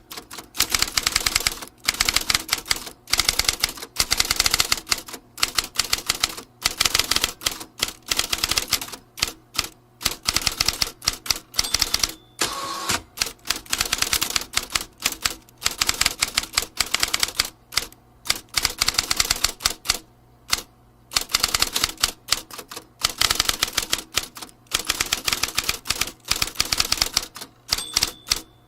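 Vintage typewriter typing: runs of rapid key strikes clattering several times a second, broken by short pauses.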